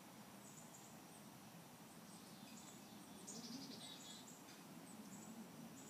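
Near-silent outdoor ambience with faint, high bird chirps recurring throughout and a short, slightly louder chirping phrase about three seconds in.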